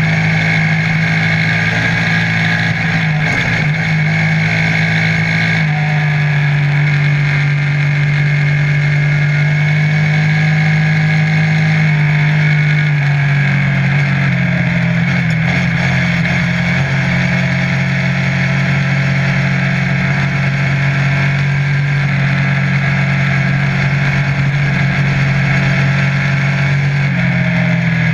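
Piranha off-road buggy's engine running steadily at cruising speed, heard on board, its pitch shifting slightly a few times as the speed changes.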